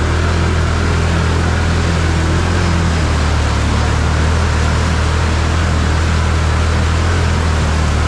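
Can-Am Outlander 1000 ATV's V-twin engine running steadily as the quad drives through shallow water, with the rush and splash of water around the wheels.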